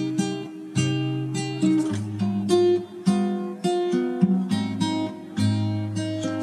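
Instrumental background music of strummed guitar chords, a new chord about every half second to second.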